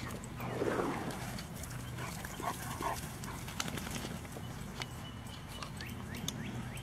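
A pack of dogs moving around with scattered clicks and pattering, a falling whine about half a second in and two short cries near the three-second mark.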